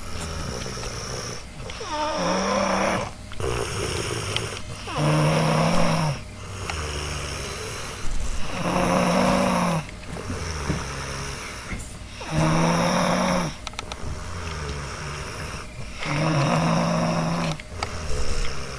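A person snoring with a cold: five loud snores about every three and a half seconds, each with a low droning tone, and quieter breaths between them.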